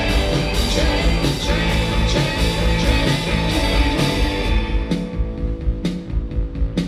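Live rock band playing: drum kit, electric guitar and keyboards. About four and a half seconds in the music thins out, leaving sharp drum hits about once a second.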